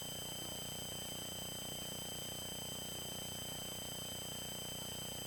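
Steady electronic hum and whine from a faulty camera's recording: several fixed high tones over a low drone, unchanging throughout.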